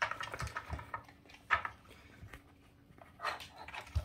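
Shetland sheepdog nosing at a plastic puzzle feeder: scattered soft clicks and knocks from the toy's plastic pegs and sliding covers, with a few louder knocks, one near the end.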